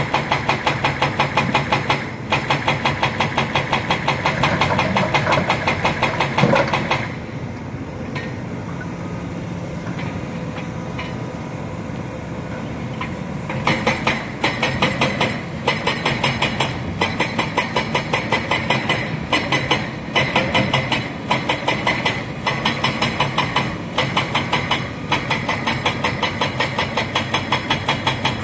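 Heavy diesel engine of a Hitachi Zaxis 210F hydraulic excavator running while loading a dump truck, with a fast, regular pulsing beat. The sound drops quieter and smoother for about six seconds partway through, then the pulsing comes back.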